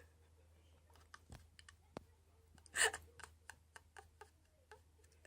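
Irregular clicking and tapping of computer keys, with one short louder hissing burst a little under three seconds in.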